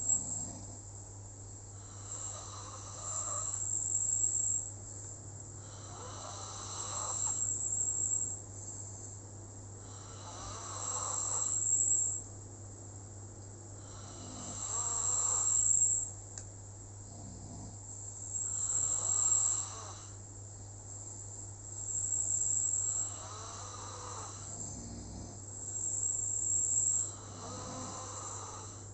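Snoring in a slow, even rhythm: seven snores, about one every four seconds, each swelling louder over a second or two and then cutting off.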